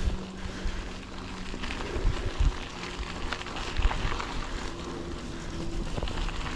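Yeti SB150 full-suspension mountain bike ridden along a dirt singletrack: steady tyre and trail noise with rattles, and a few hard knocks from bumps about two and four seconds in. Wind rushes over the microphone.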